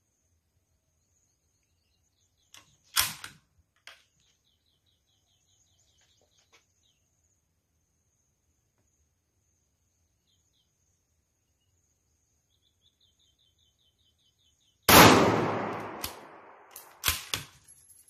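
A CZ 527 Carbine bolt-action rifle in .223 fires one loud shot about fifteen seconds in, a sharp crack with a long fading tail, followed by a few sharp metallic clicks as the bolt is worked. A single sharp click about three seconds in; faint chirping and a steady high insect whine in between.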